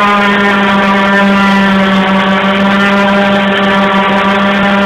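Electric random orbital sander running steadily as it sands a bare wooden tabletop, a loud, even buzzing hum.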